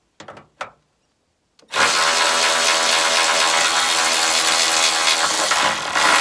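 Cordless electric ratchet running steadily from about two seconds in, a continuous motor whine as it spins a grill flange nut off its plastic stud. Two light clicks come just before it starts.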